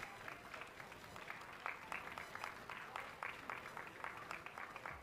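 Light, scattered applause from a small crowd: individual hand claps, several a second, irregular and faint.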